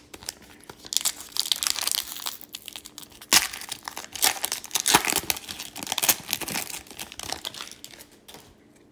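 Foil wrapper of an Upper Deck hockey card pack being torn open and crinkled by hand, with sharp crackles and snaps, starting about a second in and dying away near the end.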